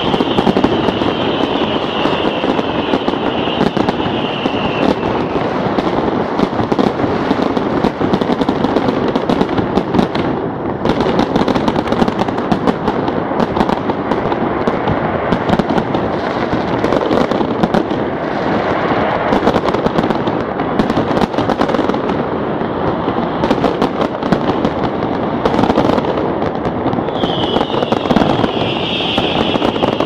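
Fireworks and firecrackers going off in a dense, continuous crackle of rapid bangs. A wavering high whistle rises above them at the start and again near the end.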